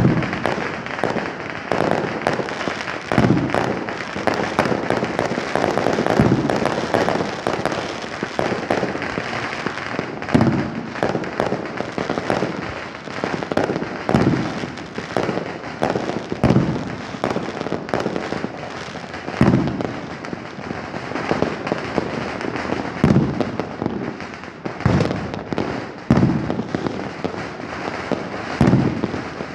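Aerial fireworks going off without a break: a dense crackling, with a louder bang every two or three seconds.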